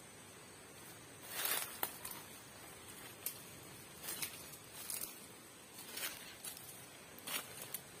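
Footsteps crunching through dry leaf litter and twigs on a forest floor, an irregular series of short crackling steps starting about a second in.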